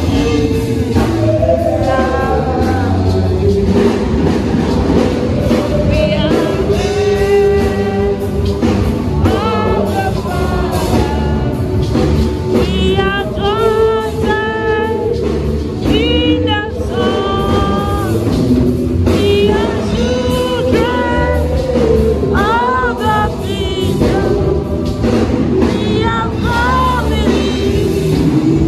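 Church worship: a congregation and band singing a gospel song, voices carrying a melody over steady instrumental backing.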